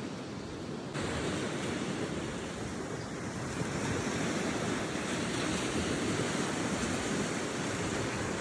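Steady wash of ocean surf breaking on the beach, with wind on the microphone; the sound jumps louder about a second in.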